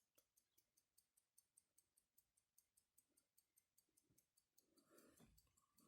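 Very faint, steady ticking of a pocket watch's anchor escapement, about five ticks a second, with a light rustle of handling near the end.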